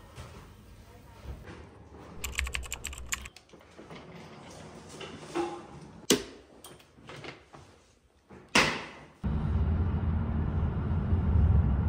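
Scattered sharp clicks and knocks, the loudest a single knock a little past two-thirds of the way through. Then a steady low rumble of road noise inside a moving car takes over.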